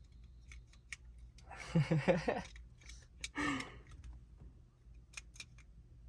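Two short bursts of indistinct voices, about two seconds and three and a half seconds in, over faint scattered clicks.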